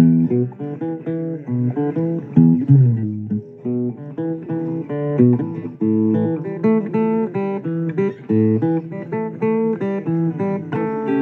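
Blues guitar playing an instrumental passage, single notes and chords picked in quick succession, with a low note bent upward about two and a half seconds in.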